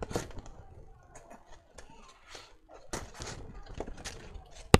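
Handling noise close to the microphone: scattered light clicks and rustles, with a sharp knock near the end.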